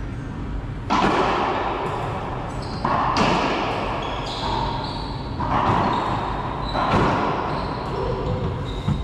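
Racquetball rally: the hollow rubber ball is struck by racquets and smacks off the court walls, about four loud sharp hits a second or two apart, each ringing out in a long echo in the enclosed court.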